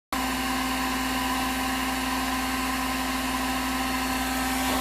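Small electric blower motor running steadily, a constant whine over a rush of air.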